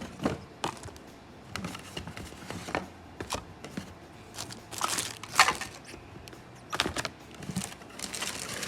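Rustling and crinkling of the RC kit's packaging and bagged parts being handled, with scattered light clicks and knocks; the loudest pair of knocks come a little past the middle.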